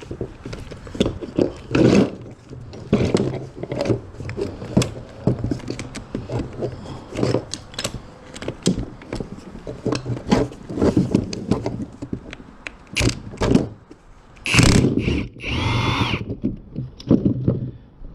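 Hand tools working the bolts on a Toyota Celica six-speed manual transmission case: rapid ratchet clicking with metallic knocks and clinks as the top bolts are loosened and removed.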